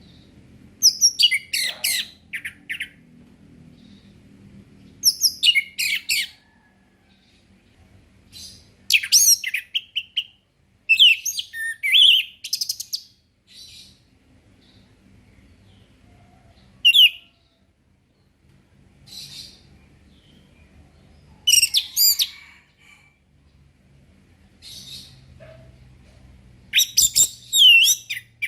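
Orange-headed thrush singing in short, varied phrases of quick whistled notes and slurred glides, a new phrase every two to four seconds, over a faint low hum.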